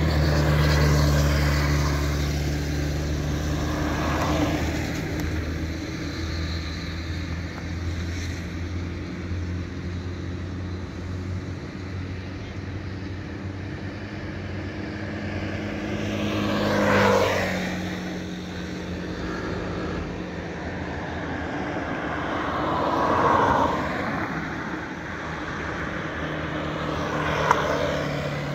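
Heavy road vehicles' engines running with a steady low hum, while vehicles pass close by about four times, each one swelling and fading, the clearest with a drop in pitch as it goes by.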